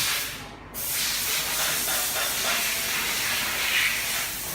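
A steady hiss that briefly drops away about half a second in, then carries on.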